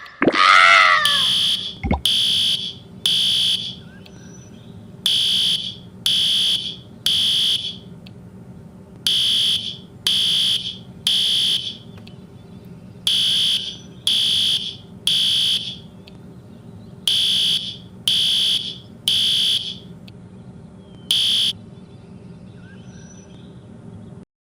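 Fire alarm sounding the three-beep evacuation pattern: three sharp high beeps about a second apart, a short pause, then three more, over and over. The first beeps follow a brief loud wavering wail at the very start, and the sound cuts off abruptly near the end.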